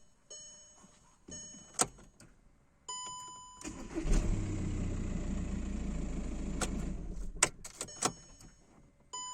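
Volkswagen Jetta 1.9 TDI four-cylinder diesel (BXE) being started: a few electronic dashboard chimes and clicks as the key is turned, then the engine cranks and catches about three and a half seconds in, runs steadily for about three seconds and is switched off, followed by more chimes.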